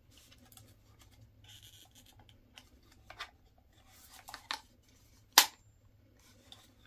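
Hands handling a holster and its instruction sheet: light rustling and scraping, a few short clicks, and one sharp click about five and a half seconds in, the loudest sound.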